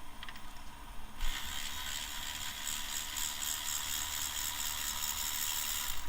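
Ratchet wrench clicking rapidly and steadily as it turns a fastener. It starts about a second in and cuts off suddenly just before the end.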